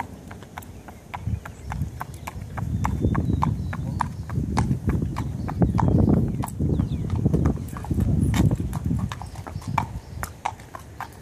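Thoroughbred stallion's hooves clip-clopping at a walk on pavement: a steady run of sharp strikes, about three or four a second. A low rumble swells under them through the middle and is the loudest sound there.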